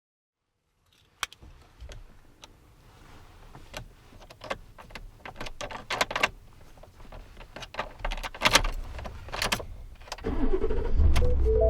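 A motor vehicle's engine starting and running with a low rumble, under a run of sharp clicks and clunks. Near the end the engine grows louder and steady as music comes in.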